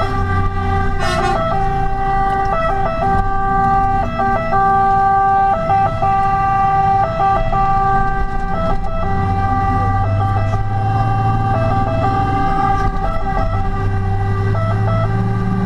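Fire engine's siren sounding continuously, heard loud from inside the truck's cab, its tone dipping briefly again and again. Underneath, the truck's engine rumbles and grows louder from about nine seconds in.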